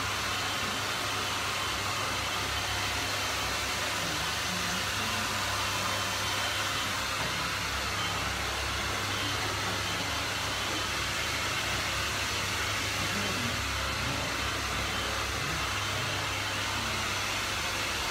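Steady, unchanging rushing noise with a low hum underneath.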